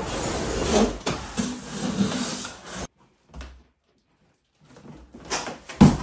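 A large cardboard box sliding and scraping as it is lifted up off a boiler, then, after a break, more rustling of packaging with one sharp knock near the end.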